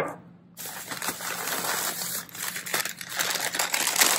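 Crumpled packing paper crinkling and rustling as it is handled to unwrap a candle, starting about half a second in and going on without a break.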